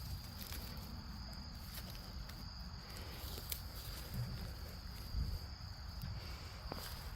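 Insect chorus with a steady high-pitched drone. Under it runs a low rumble, with a few faint clicks about the middle and near the end.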